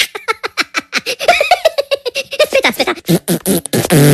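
A woman laughing hard in a rapid run of short giggling bursts. Near the end a long, low buzzing sound starts.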